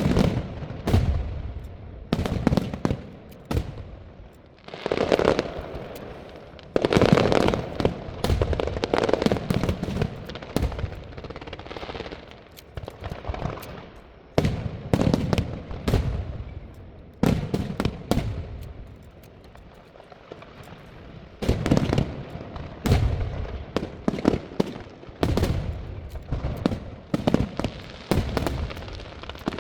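Fireworks display: volleys of rapid, sharp bangs from shells bursting, coming in irregular clusters with short lulls between.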